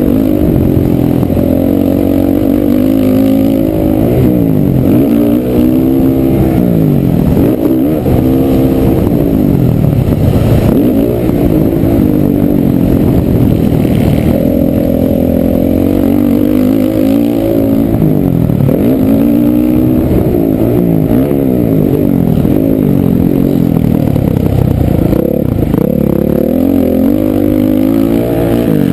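Honda CRF450R single-cylinder four-stroke motocross engine, heard close up from on the bike, revving hard, its pitch climbing and dropping again every two to three seconds as the rider throttles on and off around the track.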